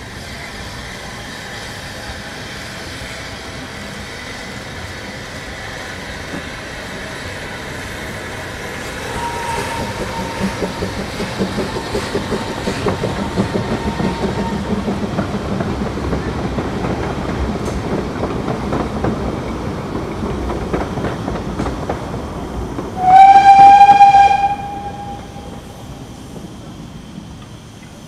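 A narrow-gauge steam train runs past, its carriages rumbling and clattering over the rail joints, then a steam locomotive gives one loud whistle blast of about a second and a half, near the end.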